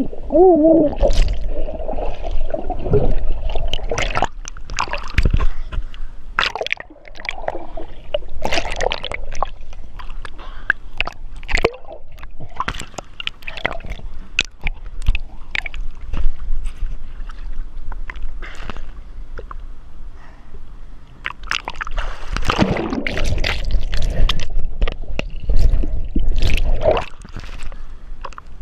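Water splashing, sloshing and gurgling close to the microphone in irregular bursts, with a low rumble underneath.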